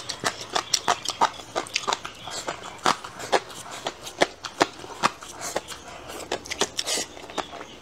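Close-miked eating sounds: a person biting and chewing chewy stir-fried meat, with irregular wet clicks and smacks of the mouth several times a second.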